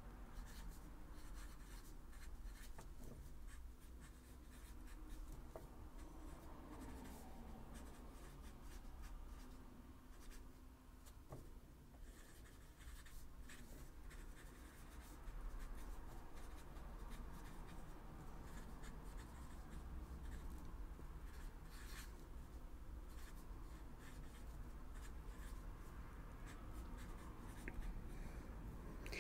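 Pen writing on a sheet of paper: faint, irregular scratching strokes.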